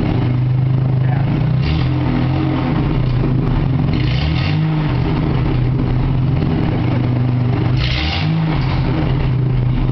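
Freshly regasketed Ford 4.9-litre (300) inline-six running steadily in a 1988 F250 pickup. Its pitch wavers briefly about four seconds in and again near the end, with a short hiss each time, as the throttle is blipped.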